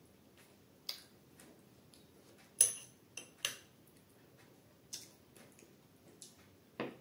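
Metal spoon clicking against a glass of mango pudding and a wooden plate while eating: a handful of separate quiet clicks, the sharpest a little under three seconds in.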